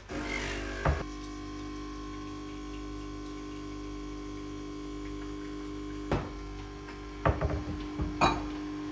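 Compact pump espresso machine buzzing steadily as its pump pushes a shot into a glass. A few sharp knocks come over it, one about a second in and several near the end.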